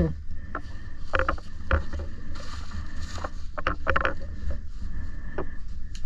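Low rumble of wind buffeting an action camera's microphone, with a few light plastic clicks and knocks, about a second in, near two seconds and around four seconds, as a full-face snorkel mask and its straps are handled.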